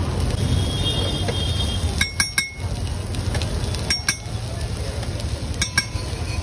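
Metal spatula clinking against an iron tawa (griddle): sharp ringing clinks in a quick cluster of three about two seconds in, then pairs about four seconds and near six seconds in, over a steady low background rumble.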